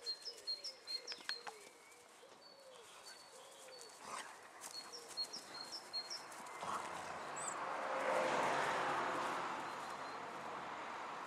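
Birds chirping in short repeated notes, then a broad rushing noise swells and fades, loudest about eight seconds in.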